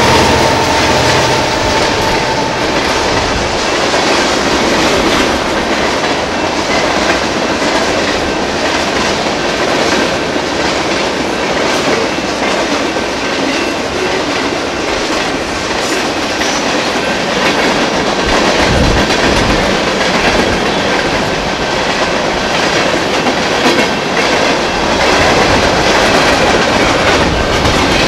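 Freight train's boxcars and covered hoppers rolling through a road grade crossing: a steady rumble and clickety-clack of steel wheels over the rail joints and crossing. A steady tone fades out about a second in.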